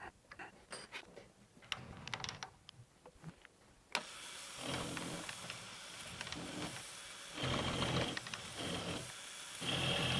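Light clinks and knocks of the copper blanks being handled and reclamped, then about four seconds in a milling machine spindle starts and runs. It is milling the ends of ganged copper soft jaws, getting louder twice as the cutter bites.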